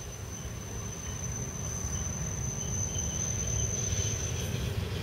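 Budapest trams running on the rails: a low rumble that grows louder, with a steady high-pitched whine that stops near the end.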